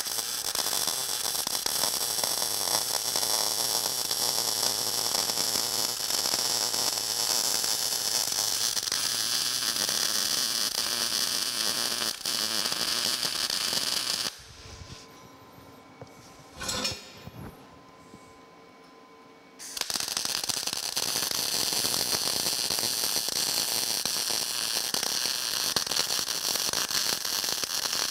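MIG welding arc crackling steadily as square steel tube legs are welded to a steel base plate. The arc stops about 14 seconds in, a short noise comes in the pause, and the arc starts again about five seconds later.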